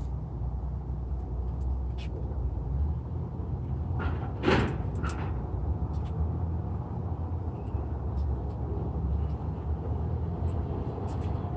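Steady low vehicle rumble, with one sharp knock about four and a half seconds in and a few light clicks.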